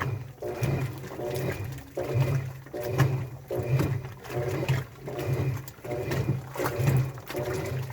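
Washing machine in its wash cycle: a motor hum with a swishing surge about once a second as the drum turns the laundry.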